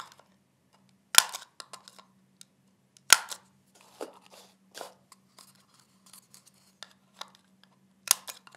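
Handheld hole punch snapping through paper cups: three sharp snaps, about a second in, about three seconds in and near the end, as the holes are punched again to enlarge them for the straws. Lighter clicks and knocks of the paper cups being handled and set down come in between.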